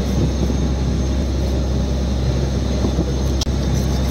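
Fishing boat's engine running steadily with a low drone.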